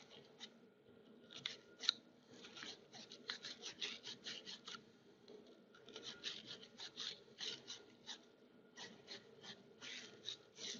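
Wire fitting brush scrubbing the inside of a copper fitting: faint, quick scratchy strokes, several a second, in runs with short pauses.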